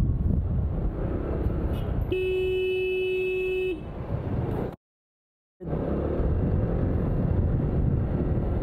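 Steady wind and road rumble of a motorbike ride, with one long steady vehicle horn honk about two seconds in, lasting under two seconds. The sound cuts out completely for under a second midway, then the rumble resumes.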